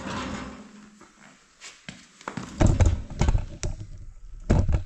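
A few dull thumps and knocks, with a cluster of heavy ones a little past halfway and another pair near the end, as a man shifts about and settles onto a low seat beside the bike.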